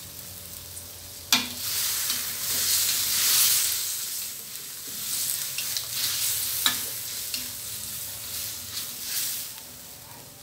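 Chicken and pickled bamboo shoots sizzling in oil and curry paste in a steel wok, stirred and turned with a spatula that scrapes and knocks against the pan. A sharp knock about a second and a half in is followed by a louder surge of sizzling, with more spatula knocks scattered through.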